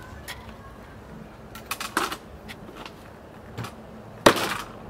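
Hatchet chopping into a large fish on a wooden cutting board: a few lighter knocks, then one sharp, loud chop near the end.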